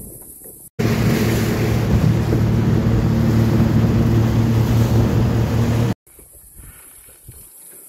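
A small aluminium boat's outboard motor running steadily under way, with water rush and wind on the microphone. It cuts in suddenly about a second in and cuts off abruptly about six seconds in, leaving only quiet outdoor background.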